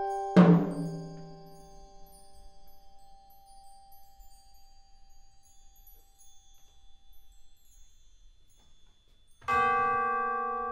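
Solo mallet percussion: a single mallet stroke about half a second in rings and fades over several seconds. Near the end, metal tubes are struck with hammers and ring on with several steady bell-like tones that slowly beat.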